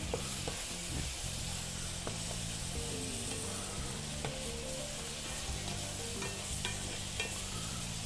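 Chopped squid filling sizzling in a hot frying pan while it is stirred with a spatula, with a few light scrapes against the pan. Soft background music plays underneath.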